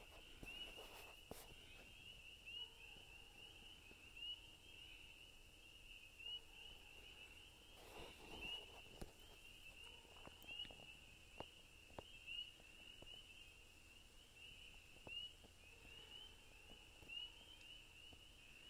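A faint chorus of spring peepers: many overlapping short, rising peeps, repeated without pause.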